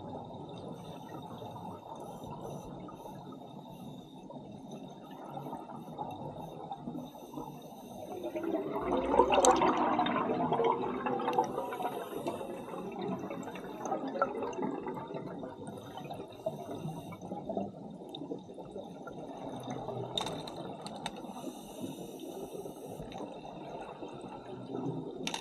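Underwater scuba exhaust: a diver exhaling through a regulator, a loud gurgle of bubbles swelling about eight seconds in and fading over several seconds, with lower bubbling and water noise the rest of the time.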